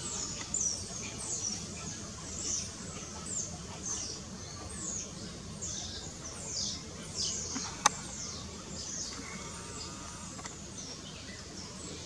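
A run of short, high chirps, each falling in pitch, about two a second, thinning out about nine seconds in, with one sharp click near eight seconds.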